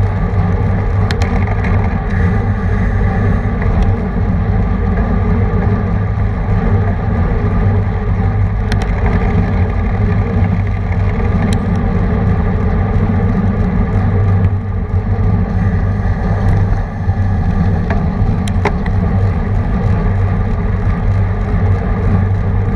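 Steady wind rush and road noise from a camera mounted on a road bike at racing speed, with a few sharp clicks from the bike.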